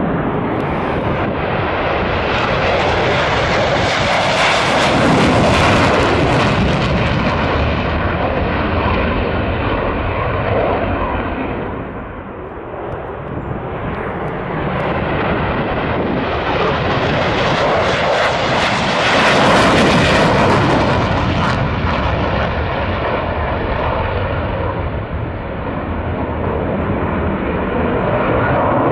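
USAF Thunderbirds F-16 jets flying past, their jet engine noise swelling to a peak about five seconds in, easing off around twelve seconds, and swelling again near twenty seconds.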